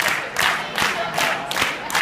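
A crowd of campers shouting or chanting together in a steady rhythm, about two to three loud shouts a second.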